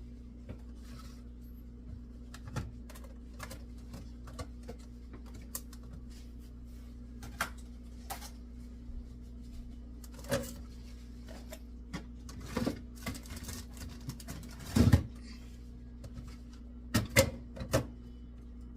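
Scattered clicks, taps and knocks of things being handled and set down while a fridge is cleared out, over a steady low hum. The loudest knock comes about fifteen seconds in, and a quick cluster follows a couple of seconds later.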